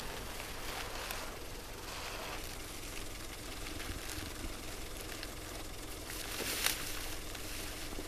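Outdoor ambience of feed sacks being handled and emptied onto snow: scattered rustles and crunches over a steady low rumble, with one louder rustle about six and a half seconds in.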